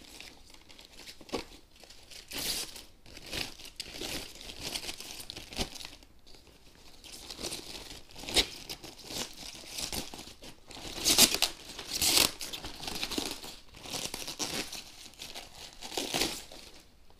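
Clear plastic bag crinkling and rustling in irregular bursts as it is handled and pulled off a motorcycle helmet, loudest about two-thirds of the way through.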